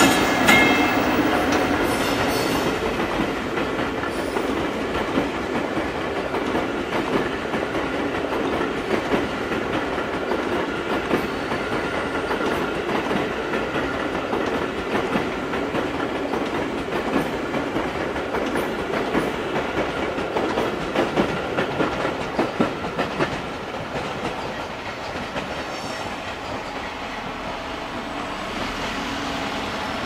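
Seibu 40000 series commuter cars, hauled unpowered behind an electric locomotive, rolling past with a steady rumble of wheels on the rails and scattered clicks over the track. The sound eases a little after about 23 seconds.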